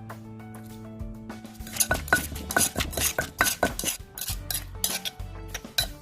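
Background music, then from about two seconds in a utensil scraping and clinking against a cooking pot in quick strokes, stirring and mashing the boiling fermented fish sauce.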